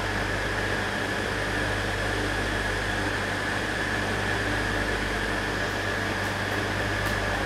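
Steady machinery drone in the engine room of the nuclear icebreaker Arktika: a constant low hum with a steady high whine over an even rush of ventilation and running plant.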